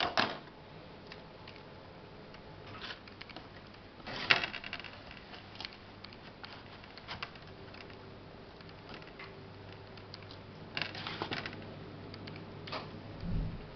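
Scattered soft rustles and clicks of fingers and a wooden skewer pressing potting soil mixed with perlite in a thin plastic tray, with a few louder crackles about four seconds in and again near eleven seconds. A faint steady hum starts about halfway through.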